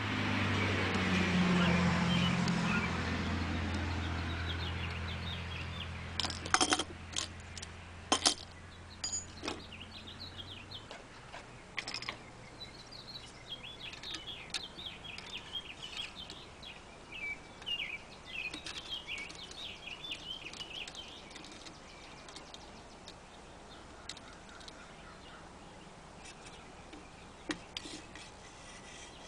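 A motor vehicle's engine drone passes, loudest about two seconds in and fading away by about ten seconds. Sharp metal clicks and taps from the knife-sharpening jig's parts being handled, a pair of loud ones around six to eight seconds in, with birds chirping in the background midway.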